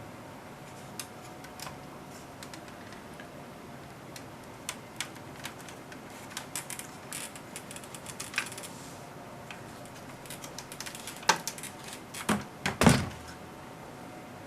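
Scattered light clicks and knocks of equipment being handled on a workbench, with a few louder knocks about three-quarters of the way through.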